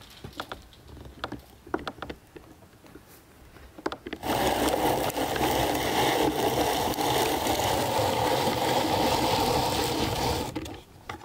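Hand-cranked rotary drum grater grinding walnuts: a few light clicks at first, then, about four seconds in, a loud steady grinding rasp as the drum is cranked fast, which stops near the end.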